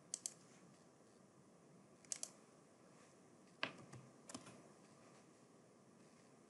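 A few scattered computer keyboard key clicks: a quick pair near the start, another pair about two seconds in, then single clicks a little after three and a half and four seconds, with near silence between them.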